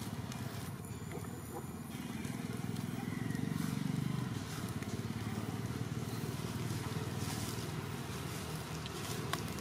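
Low, steady background rumble that swells about three to four seconds in, with a few faint clicks.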